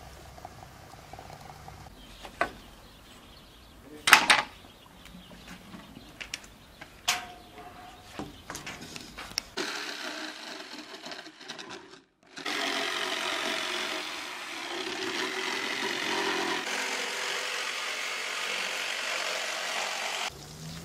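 Electric jigsaw cutting a wooden board, a steady buzzing that runs for about eight seconds in the second half and stops abruptly near the end. Before it come a few sharp knocks and clinks, the loudest about four seconds in.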